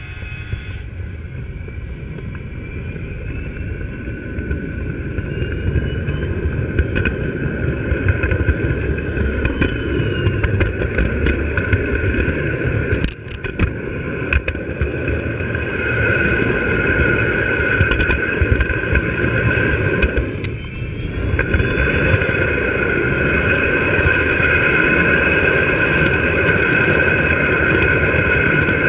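O gauge three-rail model train running along the track, heard from aboard the train: a steady rumble with a high steady whine. It grows louder over the first several seconds, with scattered clicks in the middle and two brief dips.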